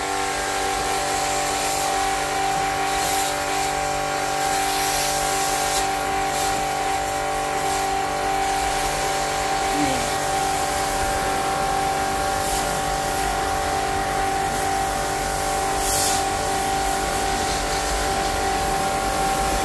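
Electric pressure washer running steadily, its pump motor whining at one fixed pitch under the hiss of the water jet spraying an air-conditioner condenser coil. It starts suddenly as the trigger is pulled.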